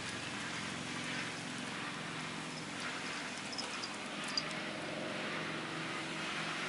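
An unidentified hissing noise in the night, a steady hiss that swells and fades over a low steady hum, with one sharp tick about four seconds in.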